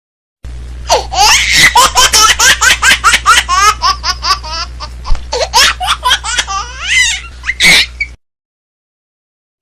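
Hearty laughter, a rapid string of high-pitched bursts over a low steady hum. It starts about half a second in and cuts off suddenly about a second and a half before the end.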